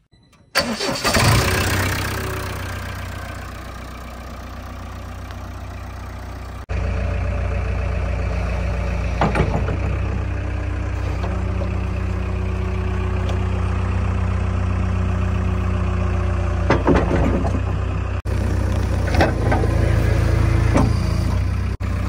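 JCB 3DX backhoe loader's diesel engine starting with a sudden burst about half a second in, then settling to a steady run. It grows louder a few seconds later and keeps running steadily, with a few short knocks near the end.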